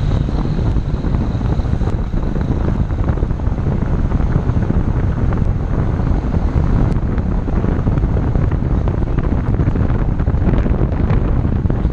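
Chevrolet Zafira on the move: steady road and engine noise with wind buffeting the microphone.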